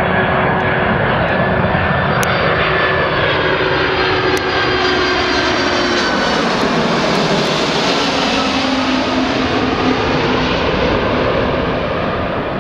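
Twin-engine widebody jet airliner's turbofan engines at approach power as it passes low overhead on final approach, gear down. A loud, steady rush carries whining tones that drop in pitch about six seconds in as it goes by, then eases slightly near the end.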